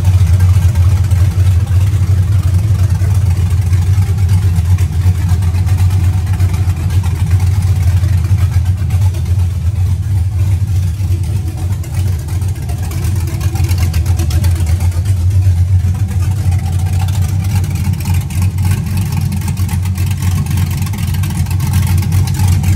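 Car V8 engine idling steadily.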